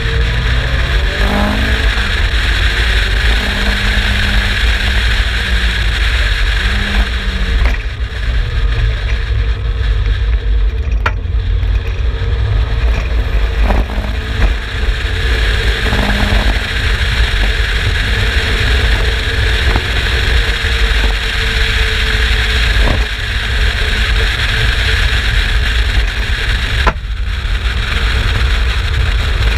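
Turbocharged Mazda MX-5 BP 1.8-litre four-cylinder in an Exocet kit car, running hard on track with heavy rumble throughout, dipping briefly near the end.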